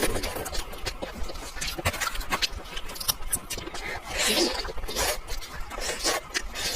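Crackling, rustling and scraping from a person handling and eating kiln-roasted chicken, made up of many short clicks and rustles with a fuller, lower sound a little past the middle.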